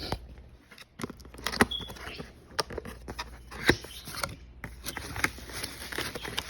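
Packaging being handled and opened by hand: an irregular run of sharp clicks and knocks with rustling in between.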